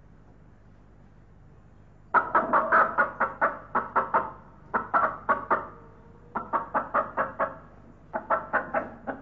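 A recorded hen clucking, played back through a small portable player's speaker: four runs of quick, repeated clucks, about five a second, starting about two seconds in.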